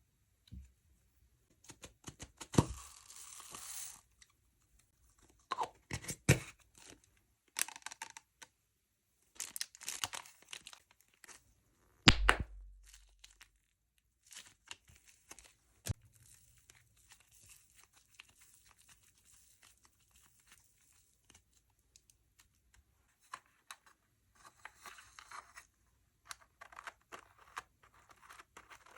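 Slime being handled, stretched and pressed by hand: scattered sticky clicks and crackly tearing sounds, with a louder thud about twelve seconds in.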